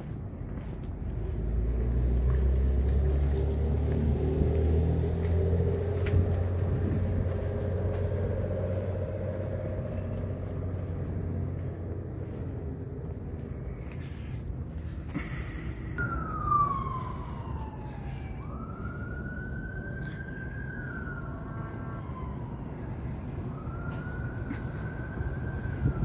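A motor vehicle's engine rumbles low for the first several seconds. Then a siren wails in the second half, with one falling sweep followed by two long rising, held tones.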